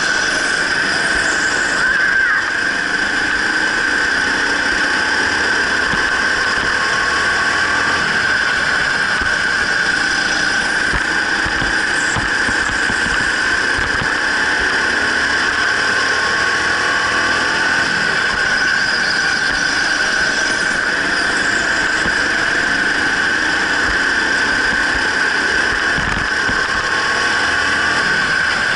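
Racing go-kart heard from on board at speed: a steady, high-pitched whine over the kart's running noise, with faint brief rises in pitch now and then.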